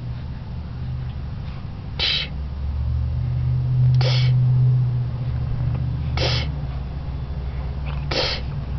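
A baby making four short, breathy puffing or snorting noises about two seconds apart, over a steady low hum inside a car.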